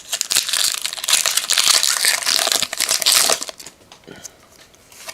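Crinkly wrapper of a trading-card pack rustling and crackling as it is handled and opened, for about three and a half seconds. After that come a few faint clicks of cards being handled.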